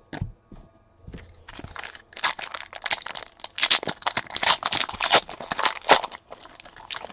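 A foil trading-card pack wrapper being torn open and crinkled in the hands, a dense run of crackling that starts about a second in, after a couple of light taps.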